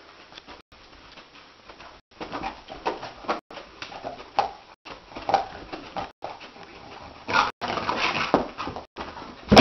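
A dog whimpering and yipping in its sleep while dreaming. The short cries start about two seconds in and come again and again, getting louder near the end.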